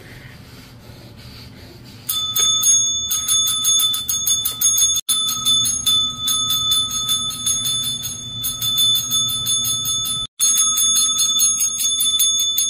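A small metal bell dinged rapidly over and over, several strikes a second, starting about two seconds in, with two brief breaks.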